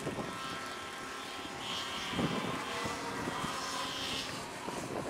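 Electric motor and propeller of a 59-inch radio-control biplane whining thinly and steadily in flight, swelling a little twice as the plane manoeuvres.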